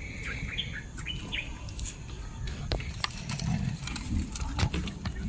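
Short bird chirps in the first second and a half, then scattered sharp clicks and knocks over a steady low rumble.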